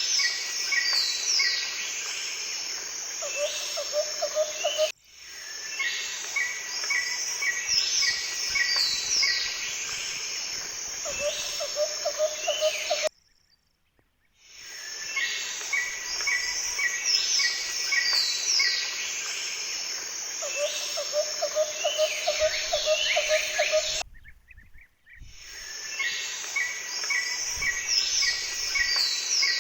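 Birdsong chorus: several birds singing with quick descending notes and runs of short repeated chirps over a steady outdoor background. It is broken by abrupt brief drops to silence about 5, 13 and 24 seconds in, and the same passage of song seems to repeat after each drop, as in a looped nature recording.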